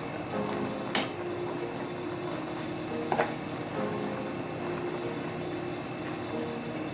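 Cabbage and egg noodles being stirred and tossed in a hot pot with a metal utensil: a steady sizzle, with two sharp clinks of the utensil against the pot, about a second in and again about three seconds in.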